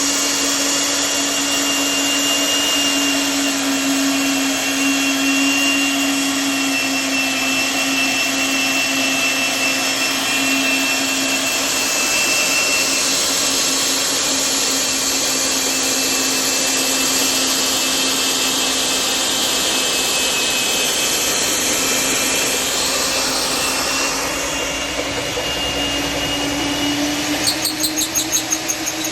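Milwaukee 3/4-inch magnetic drill's electric motor running steadily with a whining hum. Near the end its pitch rises slightly and a quick fluttering pulse comes in.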